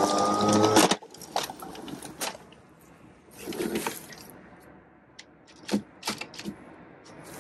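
Background music cuts off abruptly just under a second in. What follows is quiet, with a few soft rustles and short sharp clicks from handling the Atlas 80V battery lawn mower, which has shut off after hitting something while mowing.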